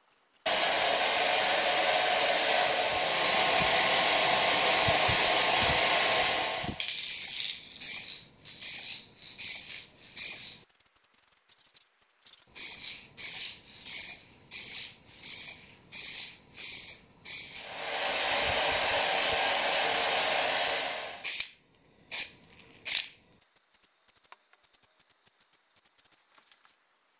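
Aerosol spray paint can spraying: one long hiss of several seconds, then a run of short hissing bursts about two a second, another long hiss, and a few last short bursts.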